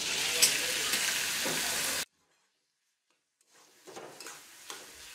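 Chopped onions dropped into hot oil in a kadhai, sizzling loudly at first. The sound cuts out completely for about a second and a half, then returns as a quieter sizzle with a spatula scraping and stirring the onions in the pan.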